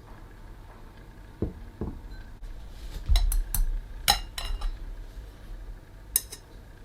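Kitchen utensils and dishes being handled: two soft knocks, then a low rumble with a quick run of sharp ringing clinks, and a single clink near the end.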